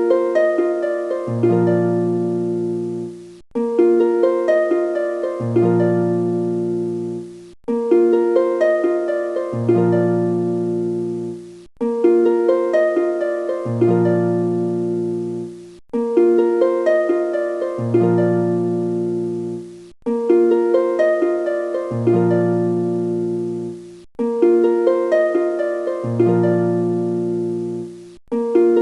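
Background music: a short phrase of plucked, harp-like notes looping about every four seconds, with a low bass note coming in under the second half of each loop.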